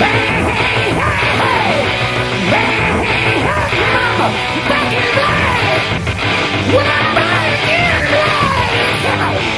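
Rock music with a singing voice, loud and dense throughout.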